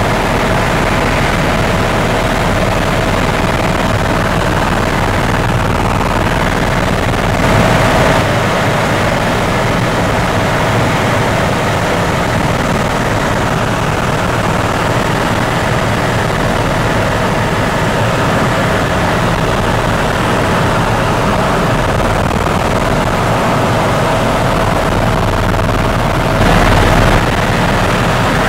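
Helicopter in flight heard from inside the cabin: loud, steady engine and rotor noise with a steady whine, briefly louder twice.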